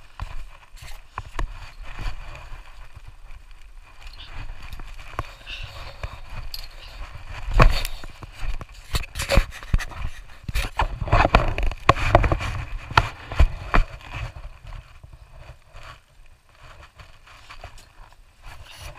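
Irregular clatter of knocks, scrapes and rustling from people and gear moving about, with the loudest bangs about eight seconds in and a dense run between about eleven and thirteen seconds.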